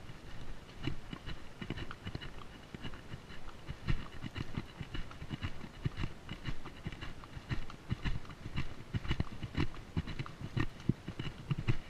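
A horse's hooves striking a rocky dirt trail at a walk: an uneven run of low thuds and clicks, several a second.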